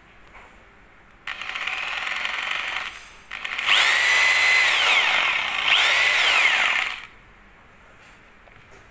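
Makita M8701B rotary hammer running free with no bit fitted, switched on in bursts. A first run lasts about a second and a half. After a short pause comes a louder run in which the motor speeds up and slows down twice, stopping about seven seconds in.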